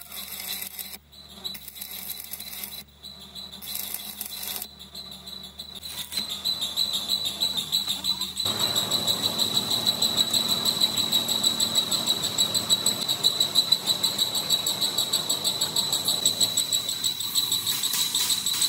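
Heavy manual lathe boring out a large steel bearing housing, with a steady high-pitched pulsing whine throughout. The cutting noise gets louder and steadier about eight seconds in.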